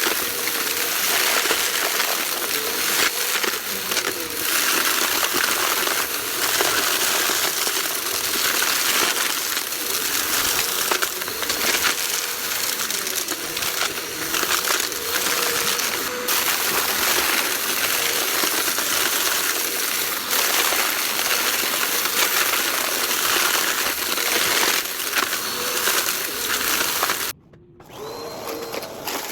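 Vacuum cleaner running and being pushed quickly back and forth, sucking up crunchy debris with a steady hiss and many rapid crackles and rattles. The sound cuts off abruptly near the end and comes back quieter.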